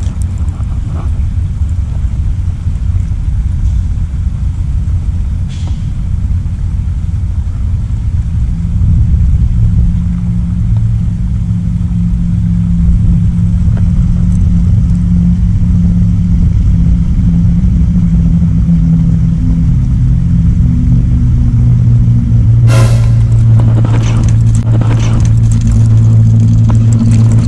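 A motor vehicle's engine running steadily with a low rumble and hum, growing louder about eight seconds in and again near the end. A sharp click sounds once about 23 seconds in.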